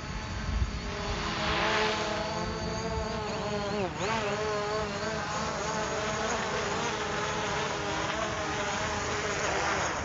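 DJI Mavic quadcopter's propellers buzzing as it hovers and comes down to land, a whine of several steady tones whose pitch dips and recovers briefly about four seconds in. Wind rumbles on the microphone underneath.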